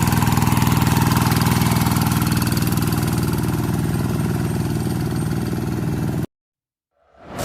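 Kubota RD85di single-cylinder diesel engine of a Quick TL800 hand tractor running steadily. It cuts off abruptly about six seconds in, and a whoosh sound effect starts right at the end.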